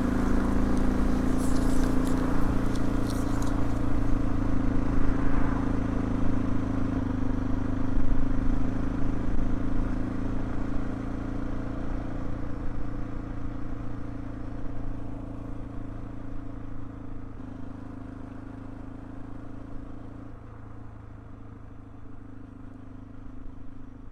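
A car engine running steadily, with a few light clicks in the first few seconds. The sound gradually fades out.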